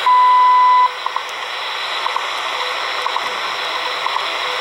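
WWV time signal on 15 MHz shortwave, heard through a portable radio's speaker: a loud beep just under a second long, the station's minute marker, then faint short ticks about once a second over steady static hiss.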